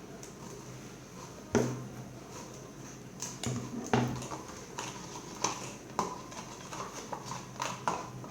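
A teaspoon knocking and clinking irregularly against a glass while stirring a thick mix of vinyl glue and colouring; one sharper knock about a second and a half in.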